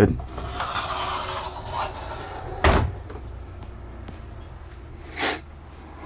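Sliding interior door in an RV being pulled open off its magnetic latch: a sliding rumble for about two seconds, then a sharp knock, and a softer knock near the end.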